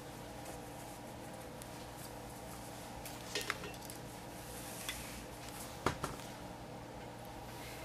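Handling noise while fabric is folded and pressed at an ironing board: a few light clicks and taps, the sharpest about six seconds in, over a steady low hum.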